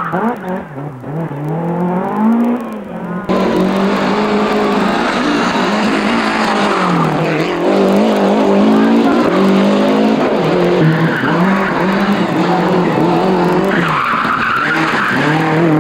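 Rally cars' engines revving hard, pitch rising and falling through the gears as they power through corners. The sound changes abruptly about three seconds in as the footage cuts to another car.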